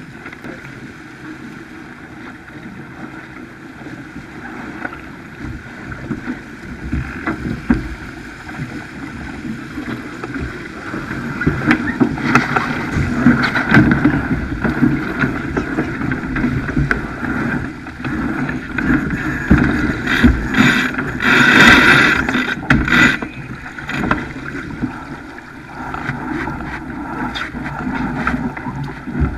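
Wind buffeting the microphone and water rushing along the hull of a Farr 280 racing keelboat under sail, with scattered knocks and rattles from lines and deck gear. The rush grows louder about a third of the way in and is loudest a little past two-thirds.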